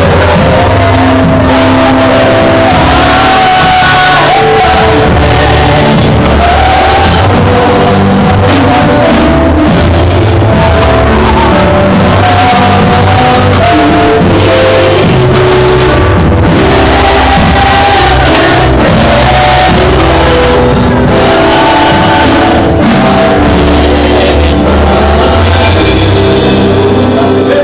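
Worship song in a church service: singing with instrumental accompaniment and a steady drum beat, loud.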